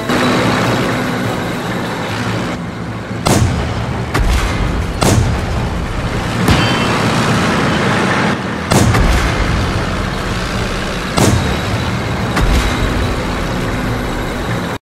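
Battle sound effects of a tank engine and tracks rumbling steadily, broken by about half a dozen sharp blasts of cannon fire and explosions. Everything cuts off suddenly near the end.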